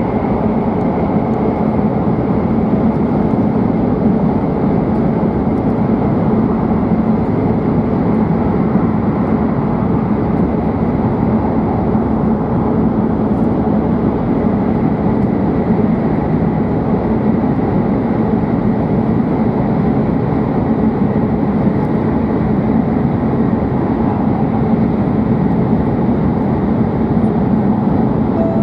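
Steady running noise inside a W7 series Shinkansen car at speed: an even rumble and rush, with a faint steady whine running through it.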